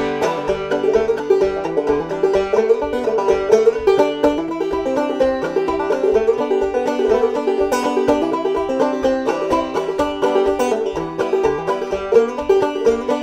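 Five-string banjo played solo: a steady run of picked notes in an old-time Appalachian tune.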